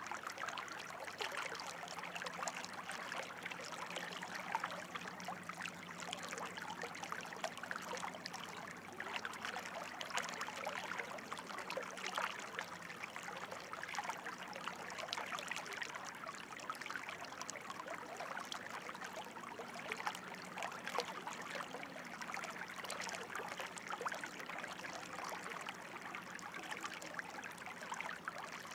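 Running water trickling and burbling steadily, with many small irregular splashes.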